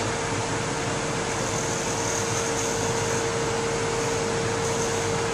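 Wood lathe running at speed with a steady whine, while the wing of a spindle gouge cuts a tiny chamfer on the edge of the spinning wooden disc.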